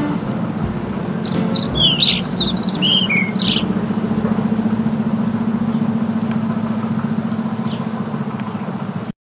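Birds chirping in a quick run of high calls between about one and three and a half seconds in, over a steady low hum with a fast even pulse. Everything cuts off suddenly near the end.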